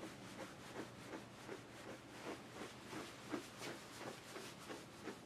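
Faint rubbing and small irregular clicks, a few a second, from hands and grooming tools working through a dog's coat.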